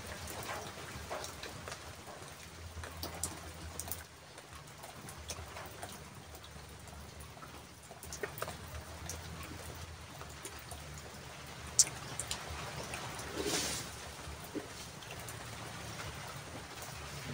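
Quiet background ambience: a faint even hiss over a weak low hum, with scattered small ticks and clicks, the sharpest about twelve seconds in.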